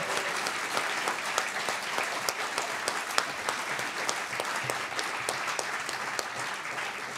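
Audience applauding, a dense patter of many hands clapping that eases off slightly toward the end.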